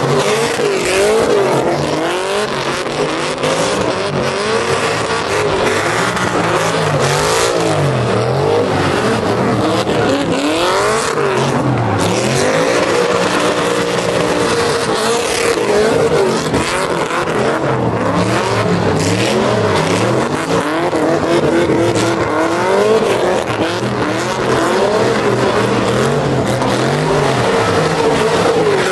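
Pickup truck doing a burnout: its engine revving up and down over and over while the spinning rear tyres screech.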